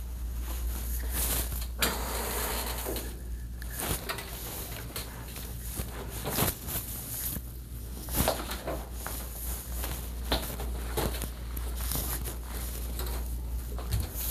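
Irregular rustling, crackling and light clicks and knocks of hands handling things, over a steady low hum.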